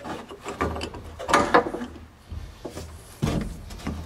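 Metal clinking and rattling of a socket and extension being handled as a differential mounting bolt is fed through the trunk access hole. The clicks come irregularly, with louder clusters about a second in and again near three seconds.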